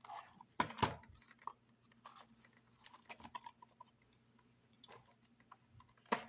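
Scattered light clicks, taps and crinkles from handling a shrink-wrapped cardboard toy-car box while its plastic wrap is picked and cut with a small metal tool, over a faint low hum.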